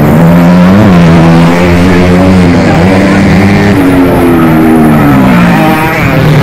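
Motocross dirt bike engines revving hard through a corner, several bikes overlapping, their pitch repeatedly rising and falling as the riders open and close the throttle.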